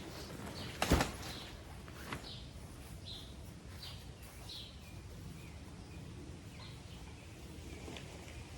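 A pop-up hub tent's frame is collapsed: one sharp snap about a second in and a smaller click a second later as the hubs are pushed in. Small birds chirp in the background.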